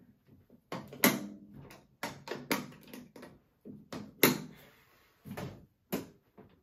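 Sharp metallic clicks and knocks, about ten in all, as the latches on the folded-flat aluminum Impact dog crate are clipped back on and its panels knock together; the loudest come about a second in and just after four seconds.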